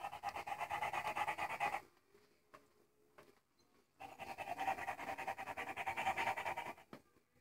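Walking toy puppy on a leash giving out its electronic dog sound in two bursts of rapid, even pulses, about two and three seconds long, with a gap of about two seconds between them.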